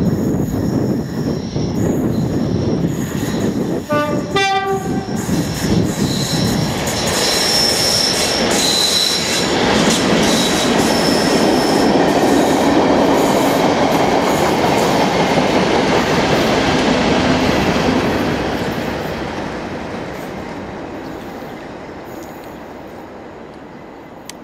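A diesel-hauled test train worked by two Class 37 locomotives (English Electric V12 diesel engines) passing close by: a heavy engine rumble, a short horn blast about four seconds in, a high wheel squeal, then the coaches rumbling past loudly before the sound fades steadily away.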